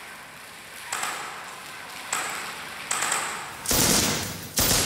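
Gunfire: three single shots about a second apart, each with a short high ring, then two louder, longer bursts of automatic fire near the end.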